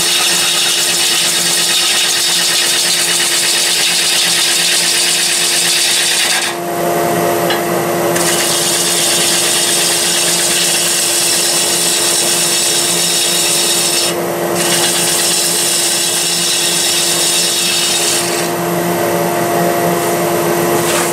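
Gouge cutting into a spinning walnut log on a wood lathe: a continuous hiss of shavings over a steady machine hum. The cut breaks off briefly twice and stops near the end, leaving the hum running.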